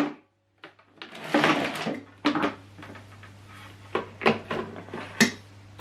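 Hard plastic knocks and clatter from a vacuum cleaner being handled and set up, about half a dozen sharp irregular knocks after a second of silence.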